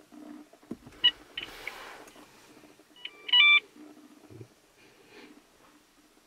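Electronic beeps inside a car cabin as the car is started: two short high beeps about a second in, then a louder multi-tone chime about three seconds in, over a faint steady hum.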